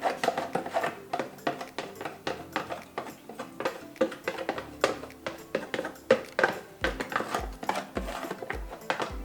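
Background music with a low beat of about two thumps a second coming in about seven seconds in, over frequent sharp clicks and knocks.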